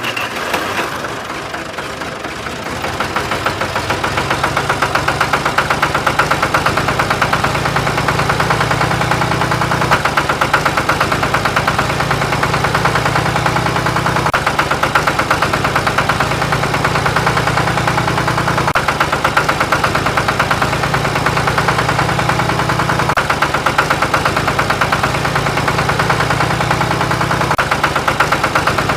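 Small motor-driven machine running steadily with a fast, even rattle, building up over the first few seconds and then holding steady.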